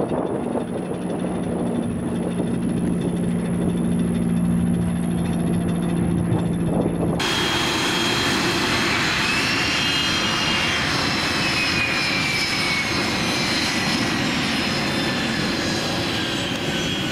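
Dassault Falcon 900EX business jet taxiing, its three Honeywell TFE731 turbofans running at taxi power with a steady low hum and a high whine. About seven seconds in the sound changes abruptly to a fuller, brighter turbine whine that rises and then slowly falls in pitch as the jet rolls past.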